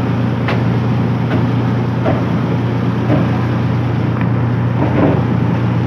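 Purse seine fishing boat's engine running with a steady low drone, with a few sharp knocks from work on deck.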